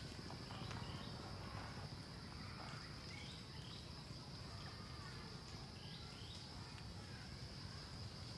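Outdoor ambience: a steady, high-pitched insect drone with scattered short chirping calls over a low background rumble.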